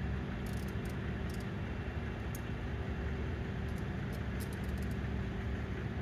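Steady low hum of an idling vehicle engine, with a few faint light clicks scattered through it.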